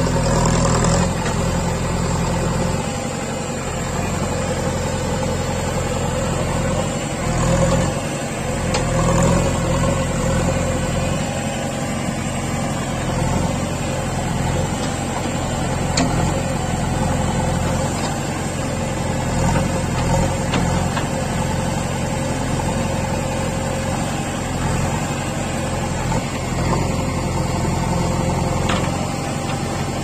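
Heavy diesel machinery engine running at a steady speed, low and continuous, with small changes in its note now and then.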